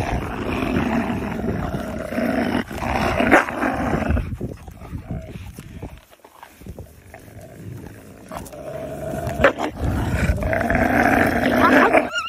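A pack of wolves growling and snarling as they feed together on a carcass. Loud bouts at the start and again in the last few seconds, with a quieter stretch in the middle.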